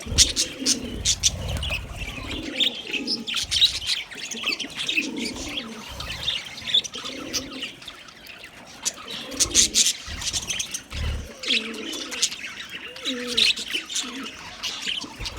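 A flock of budgerigars chirping and chattering continuously in quick high notes, with low cooing calls repeating underneath.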